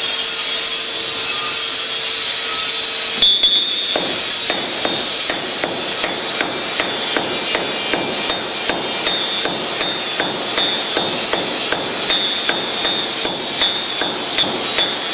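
A sledgehammer and a hand hammer forging a red-hot steel sword blade on an anvil: regular metal-on-metal blows, about two a second, with a bright ring, starting about three seconds in. Before that, a steady rushing noise with a low hum.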